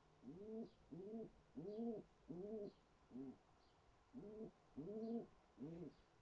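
Pigeon cooing: a run of five short coos, each rising and falling in pitch, then after a pause of about a second, three more.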